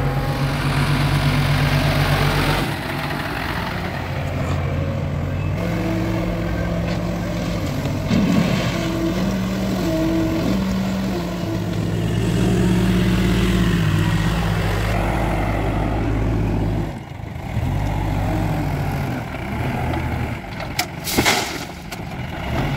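Bobcat backhoe loader's diesel engine running, its pitch stepping up and down as it drives and works the loader. Near the end comes a brief loud clatter as stones are tipped from the front bucket into a dump truck's bed.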